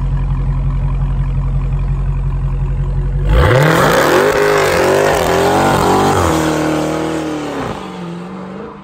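Dodge Charger SRT Hellcat's supercharged V8 idling with a deep, steady rumble, then about three seconds in it revs hard and the rear tyres spin in a smoky burnout, with tyre squeal and a rising and falling engine note. The engine drops back and fades near the end.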